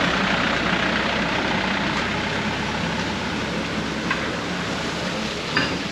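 Shuttle bus running: a steady engine hum under even road noise.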